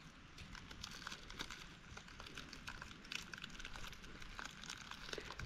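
Faint crinkling of a small plastic snack packet being handled, a run of small irregular crackles.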